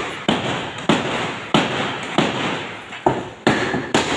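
A series of sharp knocks, about two a second, each ringing on briefly in a large, echoing hall.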